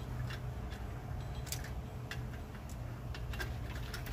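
Light metallic clicks and ticks at irregular intervals as locking pliers work at the rear parking-brake shoe hardware, prying the shoes and spring clips loose, over a steady low hum.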